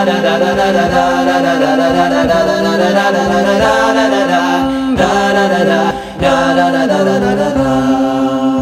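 Wordless a cappella vocal interlude of a nasheed: several voices hold long notes in harmony, moving to new chords every second or two, with a brief dip about six seconds in.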